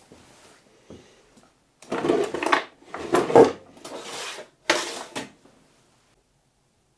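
Steel drawers of a Bisley drawer unit being pulled open and pushed shut, about four sliding, knocking sounds in quick succession from about two seconds in.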